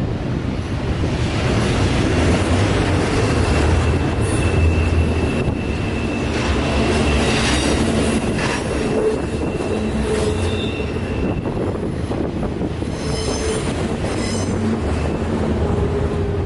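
Double-stack container well cars rolling past on a curve, steel wheels running over the rails. A thin steady flange squeal sets in about three seconds in and lasts several seconds, with short higher squeals near the end.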